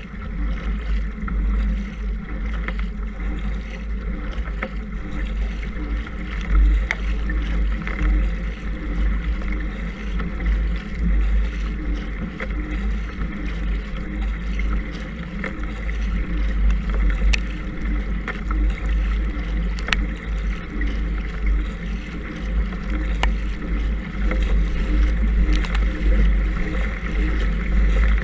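Kayak moving under paddle on open water: water rushing along the hull and the paddle blades splashing in, over heavy wind rumble on the camera microphone.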